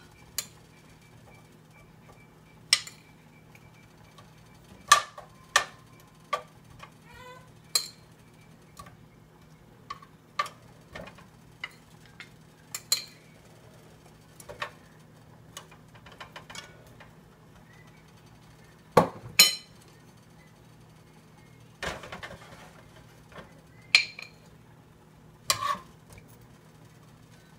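Kitchen clatter: scattered knocks and clinks of utensils, dishes and pans being handled, with a louder pair of knocks about two-thirds of the way through, over a faint steady low hum.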